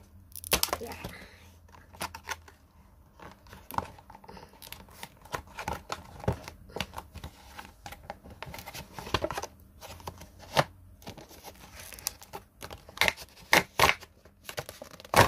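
Stiff clear plastic blister packaging being prised open and handled, crackling and crinkling in irregular sharp snaps, with the loudest snaps near the end.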